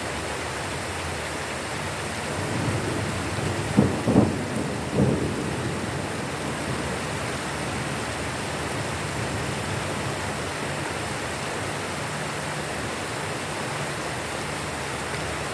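Steady rain, with a short rumble of thunder about three seconds in that breaks into three sharp cracks and dies away a couple of seconds later.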